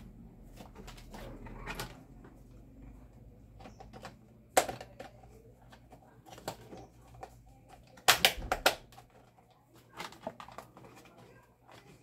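Hard plastic clicks and knocks as a table fan's plastic motor cover is worked onto the housing and its clips snap into place. The loudest click comes about four and a half seconds in, with a cluster of sharp clicks around eight seconds.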